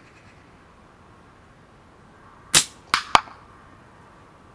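A shot from a Moxie Scorpion slingshot firing 8 mm steel ammo: a sharp snap as the bands are released, followed within about half a second by two more sharp clicks in quick succession.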